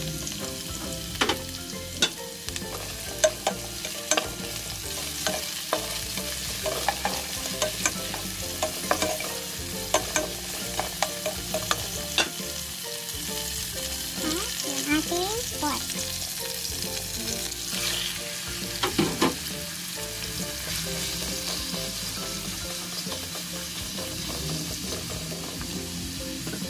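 Chopped garlic, onion and tomato sizzling in hot oil in a nonstick pan, a steady hiss broken by irregular clicks and knocks of a wooden spatula stirring against the pan.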